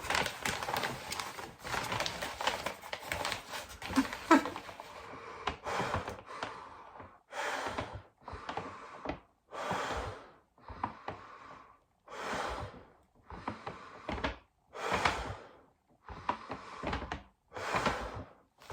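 A paper bag rustling as it is handled, then slow, even breaths in and out of the bag to stop hiccups, each breath crinkling the paper, about five in-and-out cycles.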